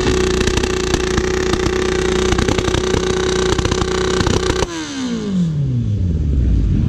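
Motorcycle engine running at steady revs. It stops abruptly about two-thirds of the way through, and then an engine's revs fall away in a long downward glide.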